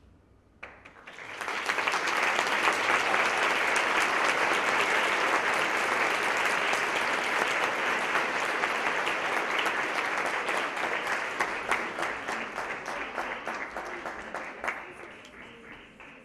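Audience applauding: the clapping starts about a second in, quickly swells and holds steady, then thins out to scattered claps and fades away near the end.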